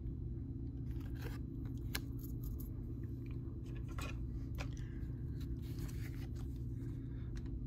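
Trading cards being handled: faint scattered clicks and rustles of glossy cards sliding against each other, over a steady low hum.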